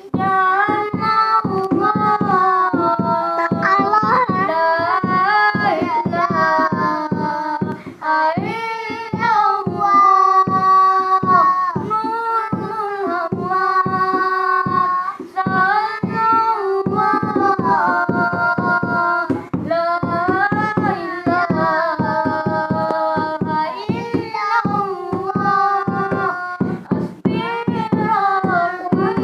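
A child singing a nasyid, a Malay Islamic devotional song, in phrases over a steady, fast beat of percussion.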